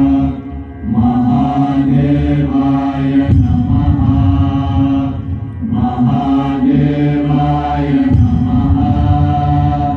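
Deep voices chanting a mantra over music, in long held phrases that break off briefly about half a second in and again around five and a half seconds in.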